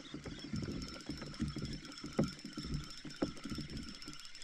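Fishing reel cranked quickly to wind in the line, with a faint steady whine from the reel and irregular knocks of rod and hands against the kayak.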